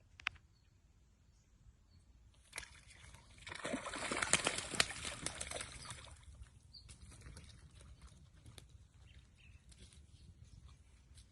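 Water splashing and sloshing for a few seconds, starting about two and a half seconds in, loudest near the middle and dying away after about six seconds, with a single sharp click just after the start.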